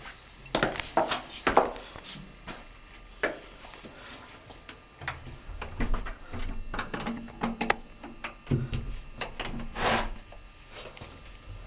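Irregular knocks, clicks and rubbing noises, with a low rumble under them from about five seconds in.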